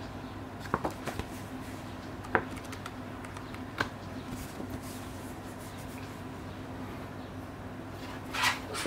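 Gloved hands handling a paper booklet: a few soft taps and paper rustles, then a louder brush of paper sliding near the end, over a steady low hum.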